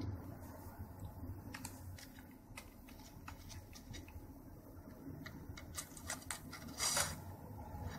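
Faint, scattered light clicks and taps of a cat's paw on computer keyboard keys, over a steady low hum. The taps come more often after about five seconds, and the loudest falls just before the end.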